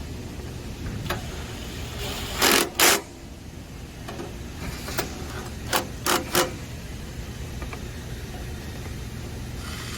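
Assembly work on a metal equipment panel: two loud short bursts of noise a bit over two seconds in, then a few sharp clicks and knocks, over a steady low hum.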